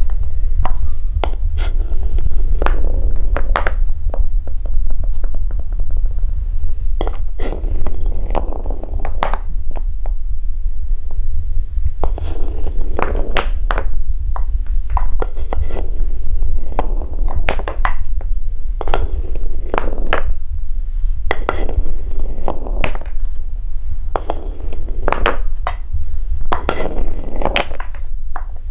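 Coloured balls running down a wooden marble-run track, with irregular clusters of quick clicks and clacks as they knock along the wood. A steady low hum runs underneath.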